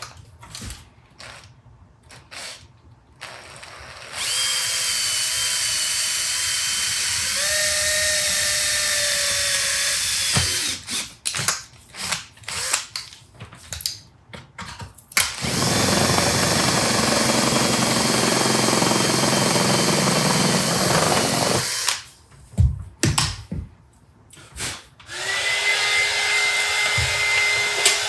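A handheld power tool runs in three separate stretches, with handling clicks and knocks between them. In the first run its pitch drops partway through, as if the tool were taking a load.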